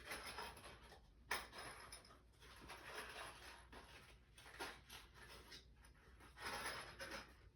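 Faint rustling and scraping handling noises in bursts, with one sharp click a little over a second in.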